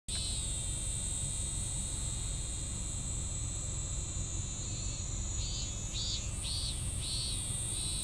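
Cicadas calling: a steady high shrill drone, and from about five seconds in a cicada's song starts up as a run of swelling pulses, about two a second, over a low steady rumble.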